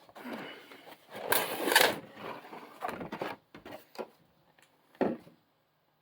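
Cardboard packaging of a boxed model airliner being handled: rubbing and rustling with a louder scrape about a second and a half in, then a few separate knocks, the last about five seconds in.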